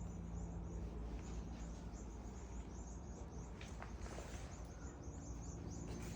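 Small birds chirping loudly in a rapid, continuous run of short, high chirps, several a second: alarm chirping set off by a rat chasing them. A steady low hum runs underneath.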